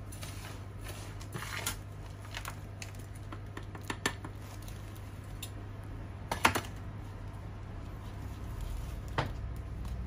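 Gritty potting mix of compost, pumice and perlite being pressed and poked around a plant in a plastic pot: scattered crunches, rustles and small clicks, the loudest about six and a half seconds in. A steady low hum runs underneath.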